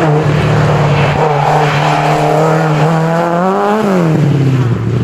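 Opel Manta rally car accelerating hard past at close range. Its engine note holds steady, climbs, then drops sharply a little under four seconds in as the car goes by.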